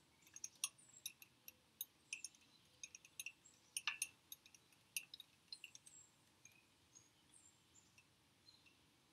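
Faint, irregular metallic clicks and ticks as a 6 mm Allen key is turned in the spindle to unscrew a folding bike pedal from its crank arm. They come thickly at first and thin out over the last few seconds.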